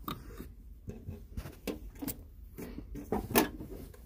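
Scattered light clicks and knocks of metal tools being handled in a toolbox drawer, with a sharper pair of knocks about three seconds in.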